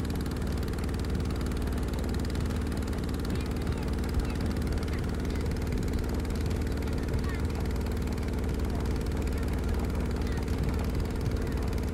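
Boat engine running steadily, a constant low hum that holds the same pitch throughout.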